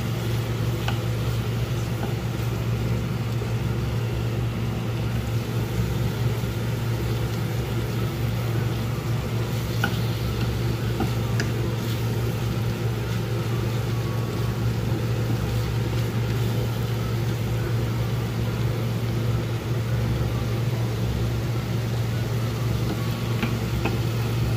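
Shrimp and vegetables stir-frying in a frying pan with a faint sizzle, and a few light taps of a wooden spatula against the pan, over a loud steady low machine hum.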